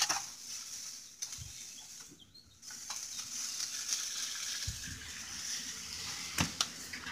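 Food sizzling on a barrel grill as a steady high hiss, with a few knocks from handling, the loudest about six seconds in.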